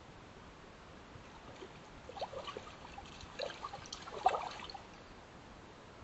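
Water splashing and sloshing as a black bear moves in a shallow creek pool: a run of small, irregular splashes from about two to five seconds in, loudest just after four seconds.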